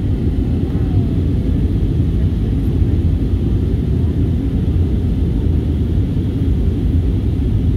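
Steady low rumble of an aircraft in flight heard inside the passenger cabin: engine and airflow noise, even and unchanging.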